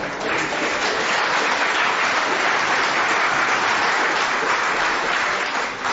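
A live audience applauding steadily, dying away near the end.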